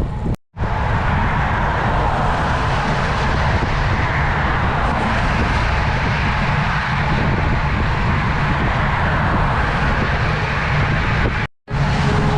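Motorcycle ride at speed: steady wind rushing over the microphone with engine and road rumble underneath. The sound cuts out briefly twice, about half a second in and near the end.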